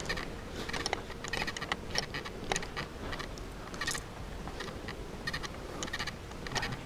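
Footsteps crunching and scuffing over grit and debris on a bare floor, a run of irregular small clicks and scrapes.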